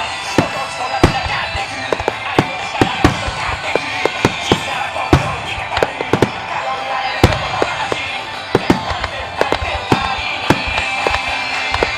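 Fireworks show in a rapid barrage: many sharp shell bursts and bangs in quick succession, several a second at times. Music plays underneath from the show's sound system, as the fireworks are fired to music (a music starmine).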